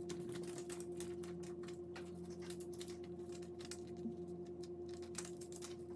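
Paper strips being handled and folded, giving quick, irregular light ticks and crackles over a steady faint hum.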